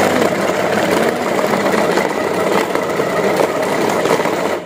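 Cosmos CB-802 food chopper running on its low speed, its blades chopping raw beef in the bowl. The motor runs at a steady pitch and stops shortly before the end.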